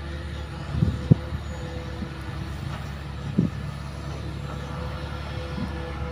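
Hitachi hydraulic excavator's diesel engine running steadily as the machine swings and raises its boom, with a few dull low thumps, the loudest about a second in.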